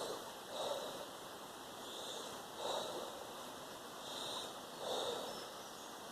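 A man breathing in and out forcefully and rhythmically during a breathing exercise, about one full breath every two seconds.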